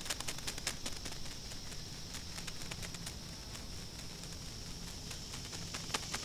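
A steady, high-pitched insect chorus, with many sharp, irregular clicks and crackles over it.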